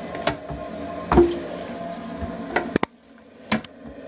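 Wooden vanity cabinet doors being handled and shut: a series of knocks and clicks, the loudest about a second in with a short ring after it.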